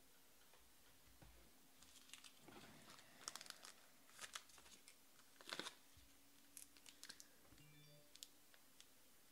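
Faint clicks and rustles of a hard plastic trading-card case being picked up and handled, the loudest about five and a half seconds in.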